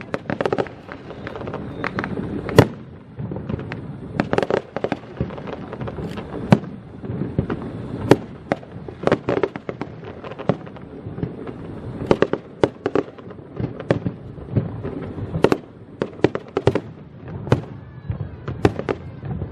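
Fireworks going off in quick succession: irregular sharp bangs, sometimes several within a second, over a continuous rumble of crackle and echoing booms.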